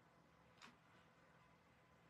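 Near silence: room tone, with one short, faint swish a little over half a second in.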